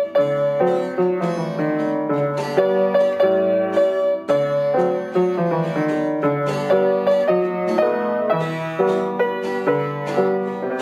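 Instrumental background music: a steady, continuous run of plucked notes.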